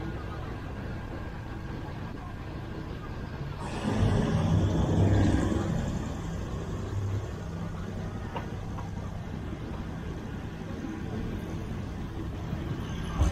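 Train running along the track, a steady low rumble; about four seconds in it grows louder for around two seconds with a deeper engine drone, then settles back.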